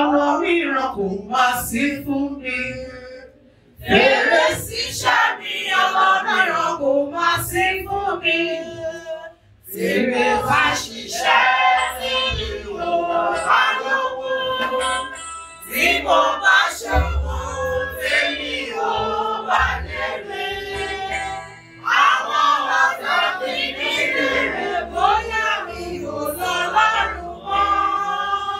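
Church congregation singing a worship song together, men's and women's voices in sung phrases with short breaks between them.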